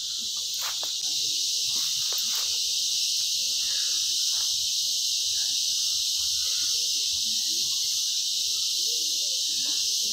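Steady, high-pitched insect chorus filling the air without a break, with a few soft rustles in the first couple of seconds.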